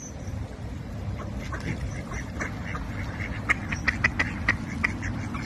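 Mallards quacking softly while feeding: a quick run of short calls that starts about a second and a half in and is busiest near the end, over a low steady rumble of background noise.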